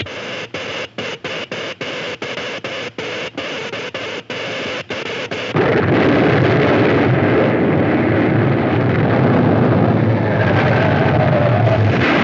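Cartoon sound effects of an electric ray: a harsh electrical crackle that sputters with many short breaks for about five seconds. It then gives way suddenly to a louder explosion and a continuous heavy rumble of the quake shaking the city.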